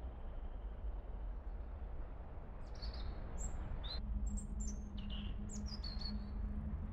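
Small songbirds chirping: short high notes, several of them falling in pitch, starting about two and a half seconds in, over a steady low rumble. A steady low hum joins about four seconds in.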